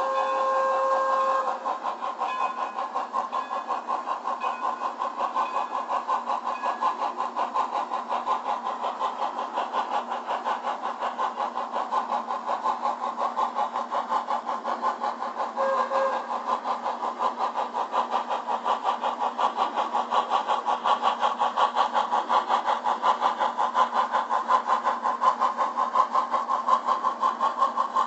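On30 model steam locomotive's sound decoder chuffing in a fast, even beat through a small speaker. A whistle sounds right at the start, and a short toot comes about halfway through.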